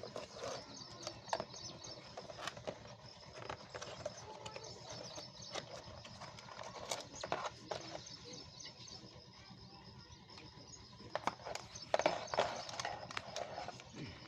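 A computer keyboard being unboxed by hand: scattered clicks, taps and rustles of the cardboard box and plastic packaging, busiest about eleven to thirteen seconds in. A faint steady high whine runs underneath.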